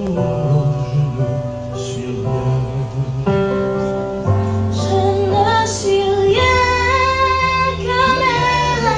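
A slow gospel song: sustained accompaniment chords change every second or so, and a woman's singing voice comes in about four and a half seconds in with long held notes.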